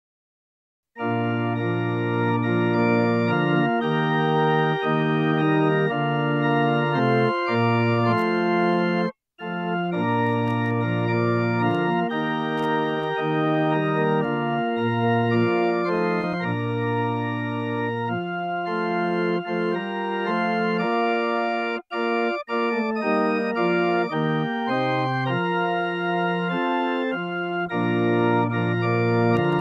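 Organ music: sustained chords that change every second or so. It starts about a second in and breaks off briefly about a third of the way through.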